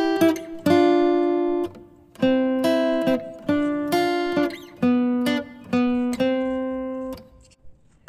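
Background music on acoustic guitar: single plucked notes and chords that ring and fade, a new one about every half second, with a short lull near the end.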